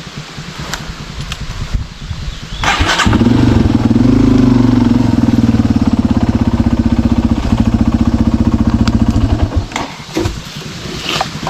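Dirt bike engine puttering low, then opened up hard about three seconds in and held under load for several seconds before dropping back to a low putter near the end.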